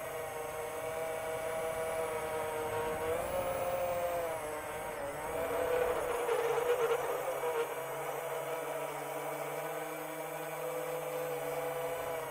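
Chimera 7 long-range quadcopter's motors and propellers whining steadily. The pitch dips and rises a few seconds in, then the sound turns louder and rougher for a moment around the middle before settling back to a steady whine.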